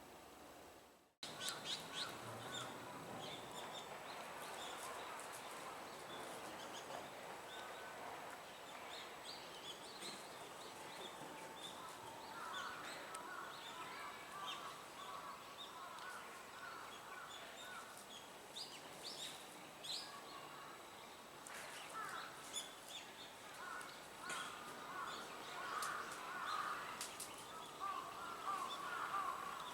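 White-cheeked starlings calling: many short, sharp calls and a chattering that grows busier toward the end, after a brief dropout about a second in.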